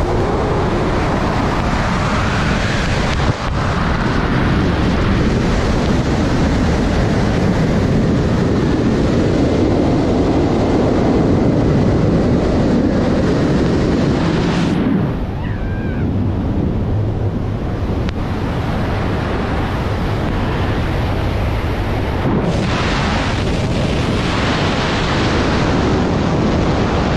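Loud, steady rush of wind over the microphone of a BASE jumper in flight, with burning flares strapped to him. The hiss turns duller for several seconds midway, then comes back.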